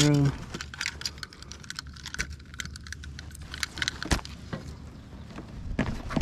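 Light, irregular clicks and rattles of fishing gear being handled in a kayak while a caught bass is measured and weighed. A brief, loud, voice-like hum comes at the very start.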